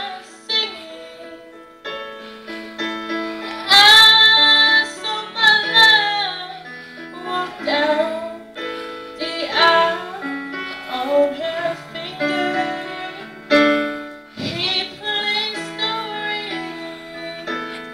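A teenage girl singing solo with piano accompaniment, her sung phrases gliding over held piano chords.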